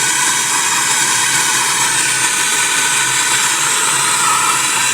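Gas blowtorch flame burning with a steady hiss, heating the plastic hub of a washing machine's basket to loosen it from the transmission shaft.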